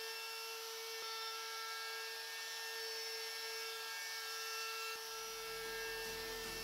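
DeWalt palm router running with a roundover bit, cutting a 1/8-inch roundover along the top edge of a wooden board: a steady, unbroken whine.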